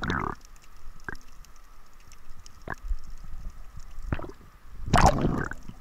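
Muffled underwater sound picked up by the camera: a short gurgling rush right at the start and a louder one about five seconds in, with a few sharp clicks between.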